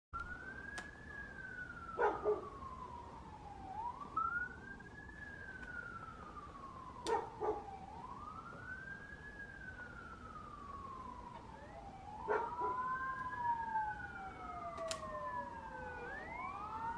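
Wailing sirens of responding fire apparatus: one siren rises and falls slowly, and a second siren joins about twelve seconds in. Short sharp sounds in pairs recur about every five seconds and are the loudest events.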